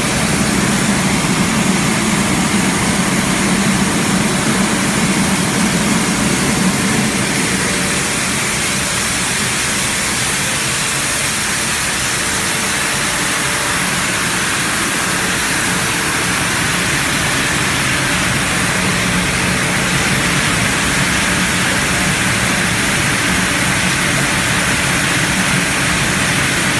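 PVC cable-sheathing granulating line running: a steady machine drone under a strong, even hiss. The low hum eases a little about eight seconds in.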